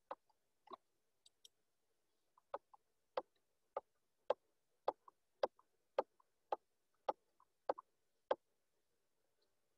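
A run of faint, evenly spaced computer mouse clicks, about two a second and a dozen in all, stepping a presentation slide through its animation so the lines of working appear one by one.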